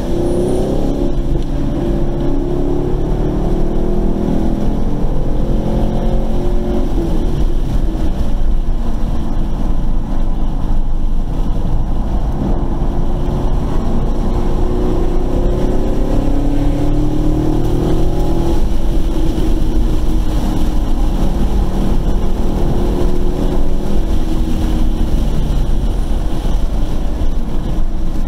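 Car engine heard from inside the cabin at speed on a race track, its pitch climbing under acceleration and dropping back several times as the car shifts and slows for corners, over steady wind and road noise.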